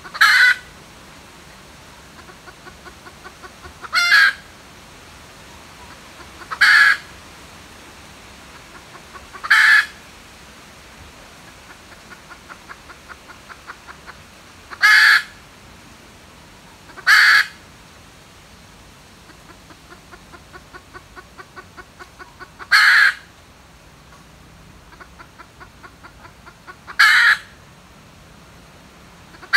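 Red junglefowl decoy hen cackling: runs of soft, quickening clucks, each ending in a short, loud, harsh squawk, repeated about every two to six seconds.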